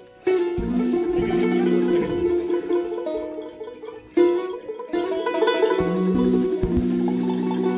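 Mandolin playing a train-whistle imitation: long held two-note chords that break off briefly about four seconds in, with banjo and guitar sounding under it and a lower note joining near the end.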